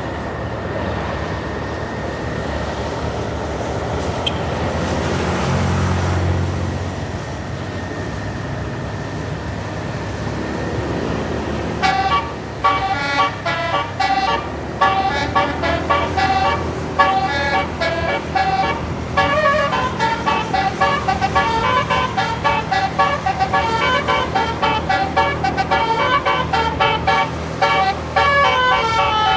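Steady bus engine and road noise, with a low swell about five seconds in. About twelve seconds in, a tour bus's basuri 'telolet' multi-tone horn starts playing a quick tune of short, chopped notes that jump up and down in pitch.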